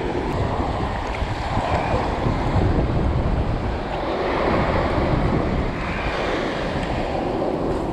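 Surf washing up the beach, swelling twice, with strong wind buffeting the microphone as a constant low rumble.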